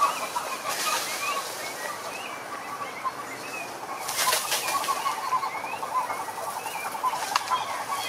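A chorus of frogs calling: many short croaking notes overlapping, joined about halfway through by a fast, evenly pulsed rattling trill. Short rising chirps sound higher up, and two brief rushes of noise come about a second in and again around four seconds.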